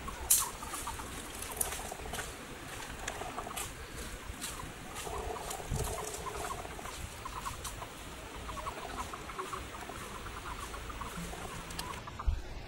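Footsteps crunching through dry leaf litter and twigs, with irregular sharp crackles, while birds call in the background.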